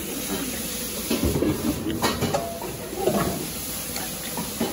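Irregular tableware clatter with a few sharp clicks, over a steady room background.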